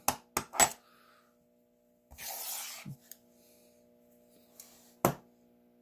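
Handling noise on a wooden desk: a few sharp clicks and knocks as a heavy block magnet and silver coins are moved, with a brief sliding scrape about two seconds in and another click near the end. A faint steady hum runs underneath.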